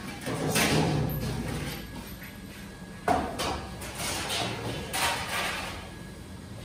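Stainless steel hotel pans and lids scraping and clanking against each other and the steel counter as they are handled and stacked, in three bouts, the sharpest about three seconds in.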